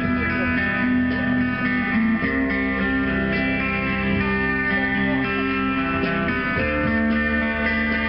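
Live rock band music led by electric guitars playing long held chords, changing chord about two seconds in and again near seven seconds.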